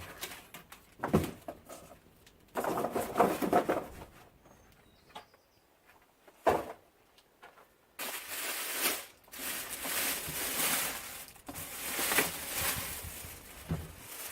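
Packaging being handled: a few knocks and bumps, then several seconds of rustling and crinkling as wrapping is pulled off.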